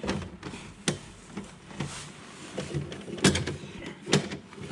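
Hands working cables and plastic parts in an electrical distribution board: rustling handling noise with three sharp clicks, about a second in, past three seconds and near four seconds.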